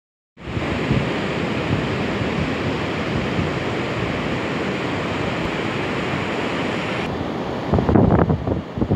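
Steady noise of surf and wind on an open beach. In the last second or so, wind gusts buffet the microphone in uneven, low blasts.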